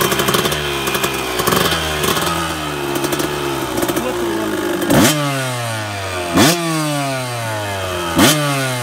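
1989 Kawasaki KX125 two-stroke single running through a full FMF exhaust, blipped repeatedly off idle: small blips early, then three sharp revs in the second half, each climbing fast and falling back. The revving is meant to clear the engine and get its KIPS power valves working.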